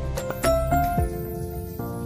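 Soft instrumental background music: a few quick notes, then a held chord from about a second in.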